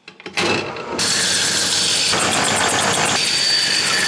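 Vertical bandsaw being switched on with a few clicks at its motor starter. About a second in, the blade starts running steadily, cutting through a handlebar tube.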